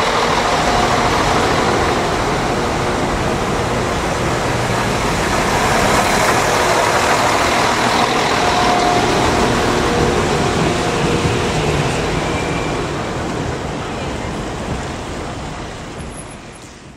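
Irish Rail 22000 Class diesel multiple unit passing close by: a steady, loud rush of wheels on rails and underfloor engine noise. It dies away over the last few seconds.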